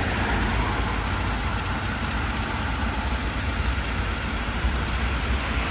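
Steady low rumble of background noise with a faint hiss over it, with no distinct knocks or clicks.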